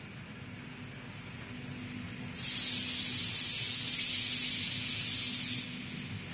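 A burst of compressed air hissing from the automated laser-cutting and robot sorting cell. It starts abruptly about two seconds in, holds steady for about three seconds and cuts off sharply, over a faint steady machine hum.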